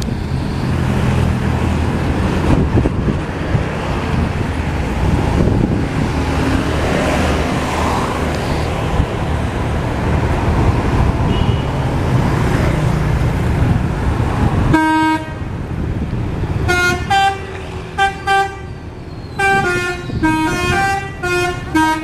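Bus engines and traffic running, then about 15 seconds in a tour bus's multi-tone 'telolet' horn plays a quick tune of short stepping notes, in several bursts with short gaps between them.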